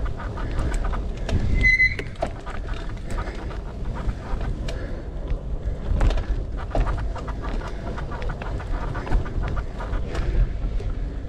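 Mountain bike rolling over a dirt trail: wind buffeting the camera's microphone, with frequent knocks and rattles from the bike over bumps. A brief high squeak about two seconds in.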